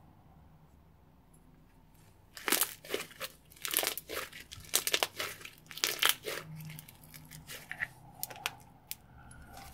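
Bubbly slime squeezed between the palms, its trapped air bubbles popping and crackling. A quick run of loud pops starts about two and a half seconds in and thins to scattered small clicks near the end.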